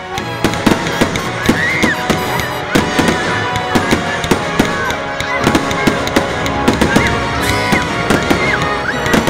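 Fireworks going off in a quick series of sharp bangs and crackles, several a second, with music playing steadily underneath.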